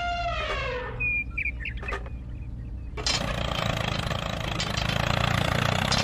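A sound effect with a pitch sliding down and fading out, then a few short chirps, then from about three seconds in a steady engine sound with a low rumble as the toy tractor drives in.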